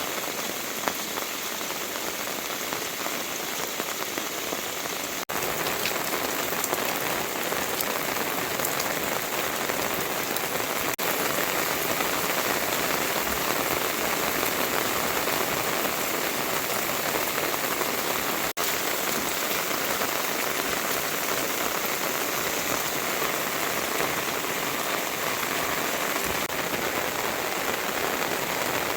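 Steady rain falling and pattering on surfaces, a dense even hiss that gets a little louder about five seconds in.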